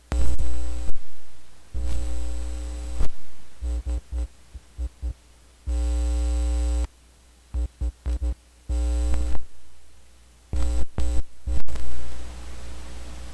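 Electrical hum and buzz picked up through a 3.5 mm male-to-male cable plugged into a laptop's microphone input, its free plug touched by fingers so the cable and body act as an antenna. It switches on and off in bursts of varying length as the plug's tip and then the whole plug are touched, with one longer steady stretch about halfway through.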